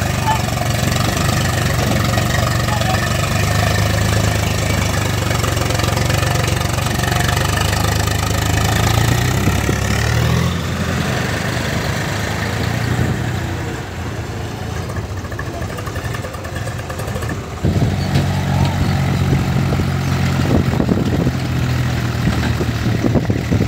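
Swaraj tractor diesel engine running steadily. The engine sound drops away about ten seconds in, then comes back abruptly about eighteen seconds in.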